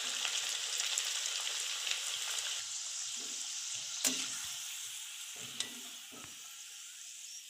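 Deep-frying: a coconut-filled maida-dough pastry sizzling in hot oil, the sizzle slowly dying down as the golden-brown pastry is lifted out. A metal slotted spoon clicks and knocks against the pan a few times, loudest about four seconds in.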